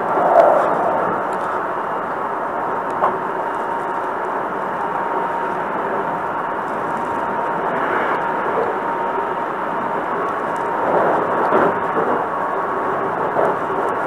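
Hankyu Kobe Line train running between stations, heard inside the passenger car: a steady rumbling noise with a faint steady whine through it and a few short clicks.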